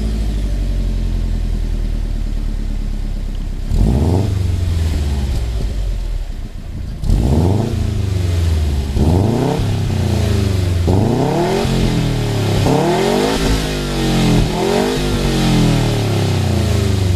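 Subaru Impreza WRX STI's turbocharged flat-four exhaust through an HKS Super Turbo Muffler, idling steadily, then free-revved. One rev comes a few seconds in; from about halfway, a run of quick blips rises and falls in pitch, coming faster toward the end.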